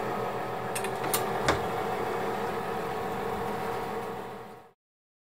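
Oven's convection fan running with a steady mechanical hum, with three sharp clicks about a second in; the sound cuts off abruptly near the end.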